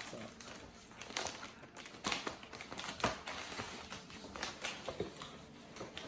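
Cardboard boxes and packaging handled on a tabletop: irregular clicks, taps and light knocks as they are set down and moved.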